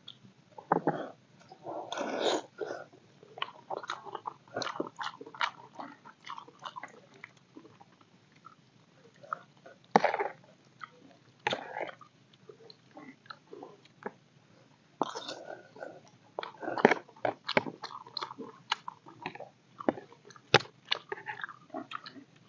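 People eating instant noodles: chewing and slurping, with short irregular clicks of spoons and forks against plastic bowls.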